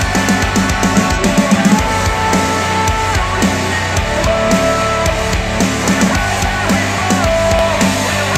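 Rock music with a driving drum kit and electric guitar, played back through KEF R3 bookshelf speakers.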